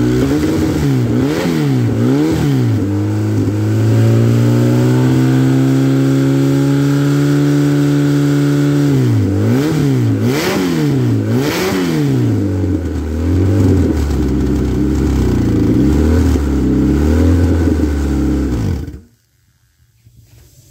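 Dodge Neon four-cylinder engine running on a test stand, warm after a compression test. It is blipped up and down in revs several times about a second in, settles to a steady idle, is blipped repeatedly again from about nine seconds, and is switched off near the end.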